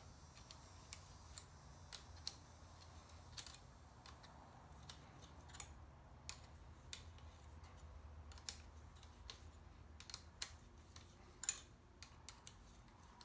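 Faint, irregular small metallic clicks and taps as a rusted handlebar control part is worked by hand, over a low steady hum.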